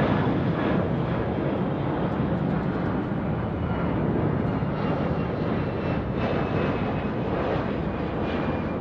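Jet aircraft engines running: a steady, loud rumbling noise, with a faint high whine coming in during the second half.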